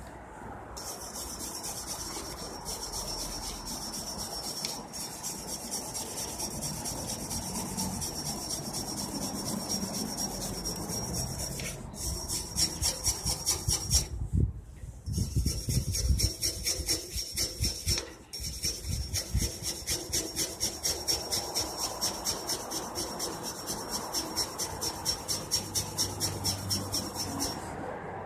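A hand brush scrubbing rust off a wet chrome-plated steel cart handle in quick, even back-and-forth strokes, with short pauses about halfway through.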